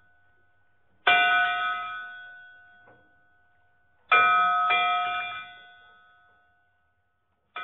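A bell is struck about a second in, then twice in quick succession about four seconds in, and once more at the very end. Each strike rings out and fades over about two seconds.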